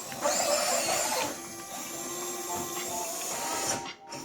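Electric servos of an RC excavator whirring as the boom and arm move. The whine wavers in pitch for about the first second, then settles into a steadier, quieter whir that stops near the end.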